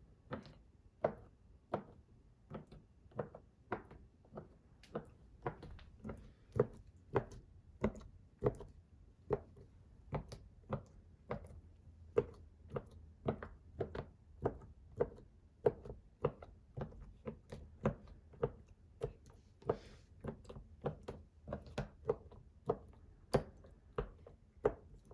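Scissors poking repeatedly into FLARP noise putty in its plastic tub: a long run of short, sharp taps, about one and a half to two a second, some forty pokes in all.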